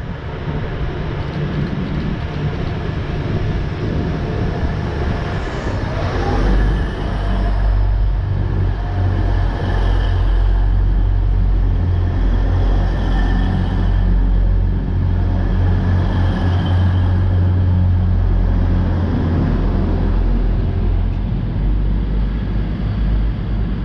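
Class 180 Adelante diesel multiple unit passing close, its underfloor Cummins diesel engines running under power in a deep, steady drone that builds about six seconds in and fades near the end. A higher whine swells and fades three times as the cars go by.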